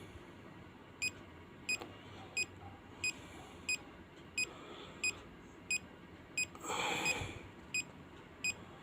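Bionics pulse oximeter giving short high beeps in a steady rhythm, about one and a half a second, the pulse tone sounding once per detected heartbeat: the unit is on and reading a pulse through its sensor. A brief rustle near the end.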